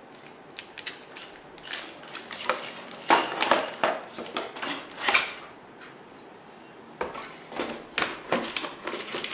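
Aluminium antenna mounting brackets knocking and clinking as they are handled and set down in a cardboard box. A few bright ringing clinks come about half a second in, a short lull follows a little past the middle, then more knocks near the end.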